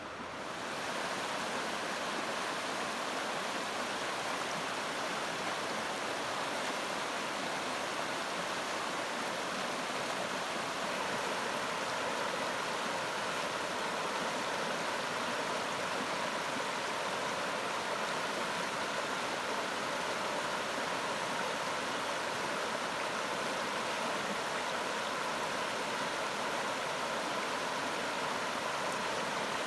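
River water rushing steadily over a shallow rocky riffle, getting louder about a second in.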